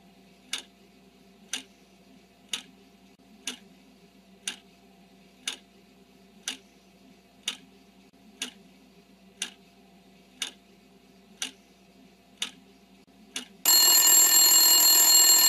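Countdown timer sound effect: a clock ticking about once a second, then a loud alarm bell ringing for about two seconds near the end to signal that time is up.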